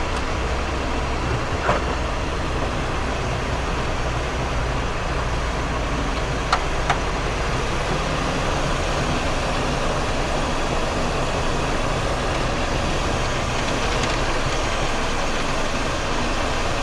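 Cockpit noise of a Cessna Citation XLS business jet rolling out on the runway after landing: a steady rush of twin turbofans, airflow and wheels, whose low rumble eases after about eight seconds as the jet slows. A few light clicks come through, one about two seconds in and two more around six and a half seconds.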